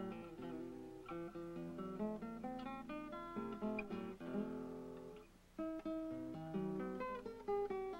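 Background music of plucked guitar notes, played as a slow melodic line that breaks off briefly about five seconds in and then resumes.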